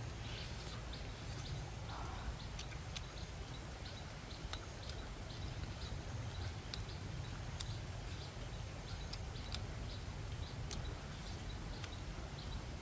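A small creature chirping in short high notes, about two to three a second, over a steady low rumble, with scattered sharp clicks.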